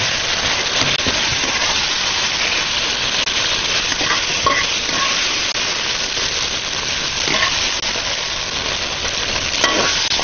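Stir-fried celtuce, Chinese yam and wood ear still sizzling in hot oil as they are scraped out of a wok into a serving bowl with a metal spatula. It is a steady hiss with a few short metal scrapes, at about four seconds, four and a half, seven and a half, and just before the end.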